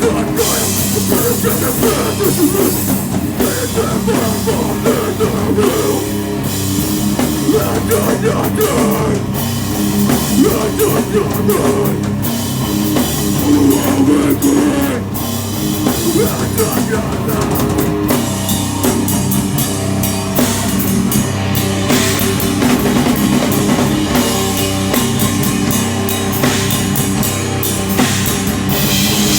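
Live heavy rock band playing loudly: distorted guitars, bass and a pounding drum kit.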